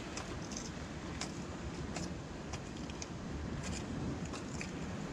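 Steady wash of small waves and wind along a rocky shoreline, with light scattered clicks and scuffs of footsteps on sandstone rock.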